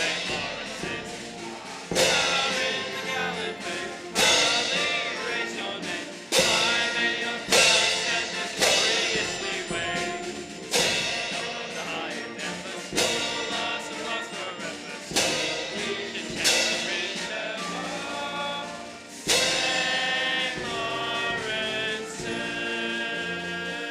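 A school song sung by massed voices with instrumental accompaniment, strongly accented beats about every two seconds, ending on long held chords.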